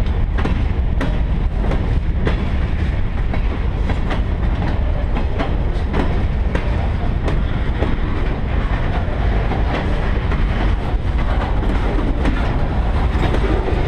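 Freight cars (covered hoppers and boxcars) rolling past on the track: a steady, loud rumble of steel wheels on rail, with a running clatter of clicks as the wheels cross rail joints.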